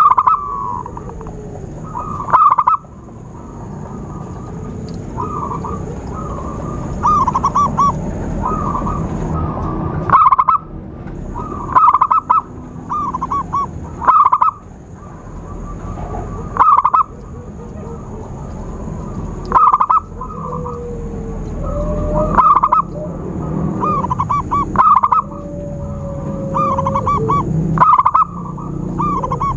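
Zebra doves (perkutut) cooing over and over: short phrases of quick, bubbly, high-pitched coos repeat every one to three seconds. This is the dove lure call. A steady low rumble and a faint steady high tone run underneath.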